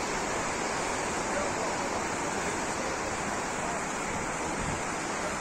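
Steady, even rush of mountain water from a torrent or cascade beside the trail.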